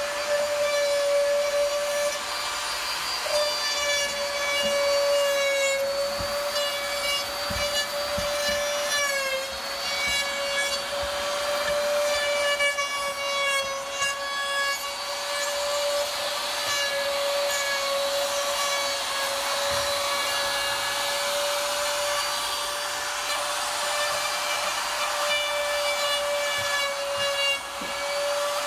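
Compact trim router running with a steady high whine as it cuts along the edges of guajará hardwood roof boards; its pitch sags briefly under load about nine seconds in.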